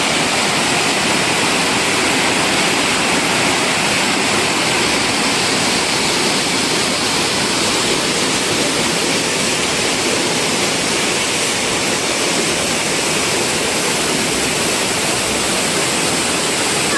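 Montmorency Falls, a large waterfall, rushing with a loud, steady, unbroken roar of falling water.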